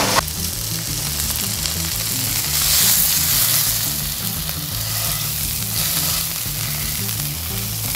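Marinated beef steak sizzling as it sears in a hot nonstick frying pan, with tongs pressing and turning it against the pan. The sizzle swells about three seconds in.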